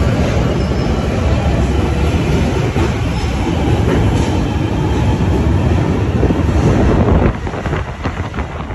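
London Underground Northern line tube train pulling out of a deep-tube platform: a loud, steady rumble of wheels on rail. About seven seconds in it drops off suddenly to a quieter rumble with light rattling from another train in the tunnel.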